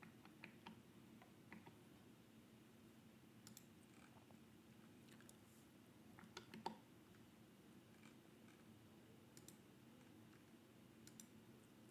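Near silence: faint room tone with a few scattered soft clicks, a small cluster of them slightly louder about six and a half seconds in.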